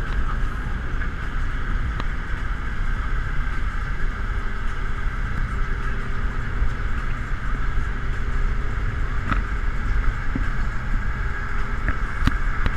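VW Mk3 Jetta cruising at a steady highway speed: even engine and road noise with no change in pace.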